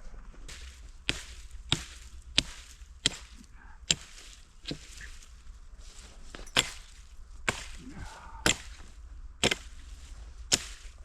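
Firewood being chopped: about eleven sharp, irregularly spaced strikes of a blade into wood, one every second or less, with a short pause in the middle.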